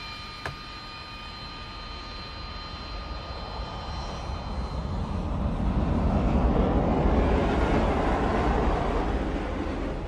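Fighter jet engines: first a steady high whine, then the noise of a jet moving along the runway swells over several seconds, is loudest about two-thirds of the way through and eases off near the end.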